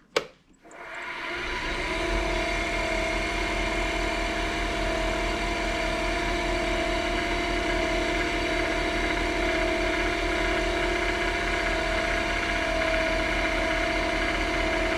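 Lathe switched on with a click, its motor spinning up over about two seconds to a steady hum with a whine, turning a pen blank for polishing with diamond paste.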